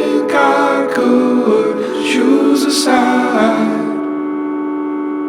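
Background music: a slow song with singing voices over sustained chords. Near the end the voices drop out, leaving one held chord.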